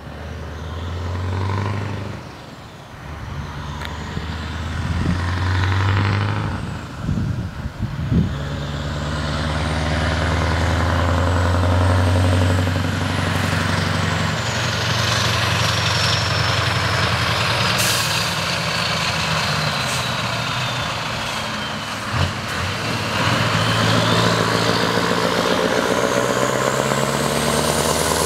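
Scania V8 diesel trucks driving past one after another, their engines pulling steadily, with a high whistle that falls in pitch as a truck goes by. A short sharp air hiss comes about two-thirds of the way through, and tyre and engine noise swell near the end as the last truck passes close.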